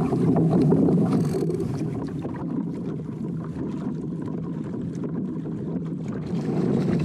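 Choppy sea water sloshing against a fishing kayak's hull, with wind rumbling on the microphone.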